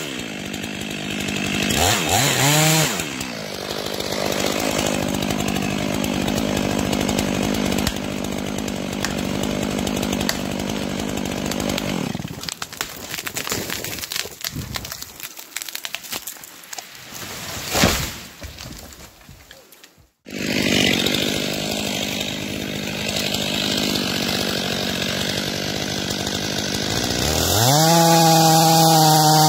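Stihl MS500i fuel-injected two-stroke chainsaw revving and cutting wood at high revs. Its sound becomes broken and uneven after about twelve seconds, cuts off abruptly around twenty seconds in, then returns and rises to full revs again near the end.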